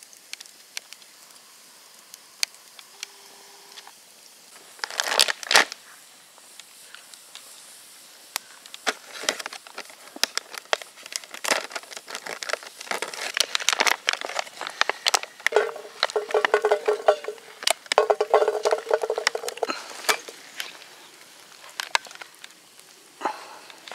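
Plastic food packaging crinkling and tearing as it is cut open with a knife, over the crackle of a campfire. Dense crackles and rustles run through the middle and second half, with a loud burst about five seconds in and a short squeaky tone later on.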